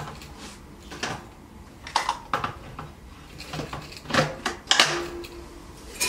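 Scattered clicks and knocks of a Kärcher ash vacuum and its accessories being handled, with a few sharper clacks about four seconds in. The vacuum's motor is not running.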